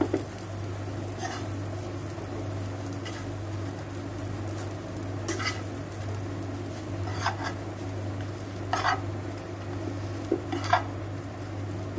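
Halved burger buns frying in ghee in a nonstick pan with a light sizzle. A perforated steel spatula scrapes and clinks against the pan about five times, the last few louder. A steady low hum runs underneath.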